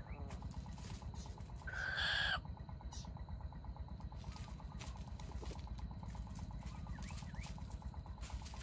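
A jungle fowl gives one loud, short call, a little under a second long, about two seconds in, over a steady low background noise.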